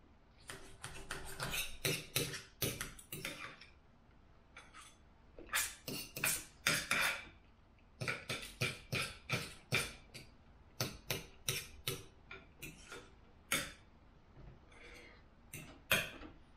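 Knife and fork clinking and scraping on a dinner plate while cutting and eating, in bursts of quick sharp clinks with short pauses between them.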